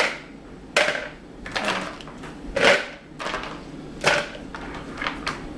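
Plastic Lego minifigures and pieces knocking and clattering as they are handled and put into a container: a series of sharp knocks roughly a second apart.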